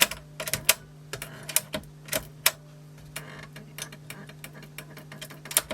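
Plastic cassette doors of a Sony TC-WE305 dual tape deck being pushed open and shut again and again, making a string of irregular sharp plastic clicks and clacks. A steady low hum runs underneath.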